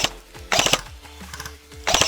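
Airsoft electric rifles firing two short full-auto bursts of rapid clicking shots, about half a second in and again near the end, over background music with a steady beat.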